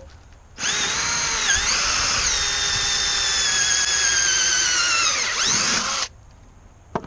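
Cordless drill driving a small, dull homemade hole saw into an old wooden fence board around a nail. The motor whine starts about half a second in, dips briefly under load, sags slowly in pitch as the bit bites, and winds down and stops about a second before the end.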